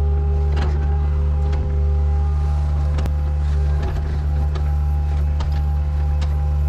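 Engine running steadily, a constant low hum with a few scattered light clicks and knocks.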